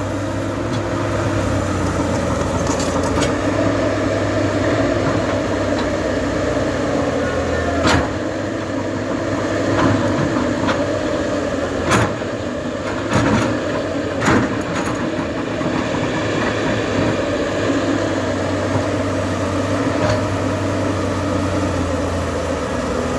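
Backhoe loader's diesel engine running steadily, with several sharp knocks from the machine's work, the loudest about eight, twelve and fourteen seconds in.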